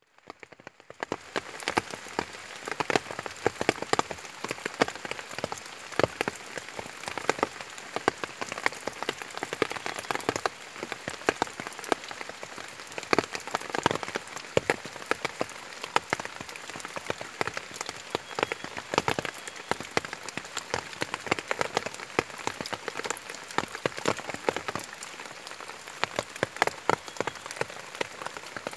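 Rain falling on broad wet leaves and a shallow puddle: a dense, irregular stream of sharp drop hits over a steady hiss, fading in over the first second or two.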